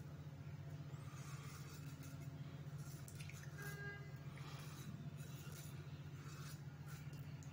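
Faint scraping of a Pearl Sleek single-edge safety razor cutting lathered stubble in several short strokes, over a steady low hum.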